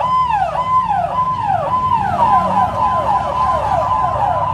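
Police motorcycle siren sounding a repeating falling yelp, about two cycles a second.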